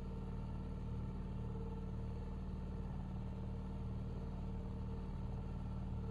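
Outboard motor of a platform boat running at a steady speed, a constant even drone.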